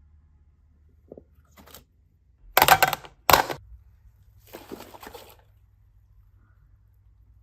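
Slime being handled: a few short, wet squishing and crackling sounds, the two loudest close together about three seconds in, with a softer one near five seconds.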